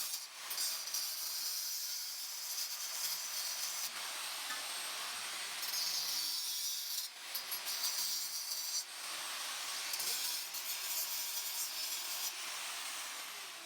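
Hand sawing through a metal motorcycle exhaust pipe: steady scraping saw strokes with a few short breaks.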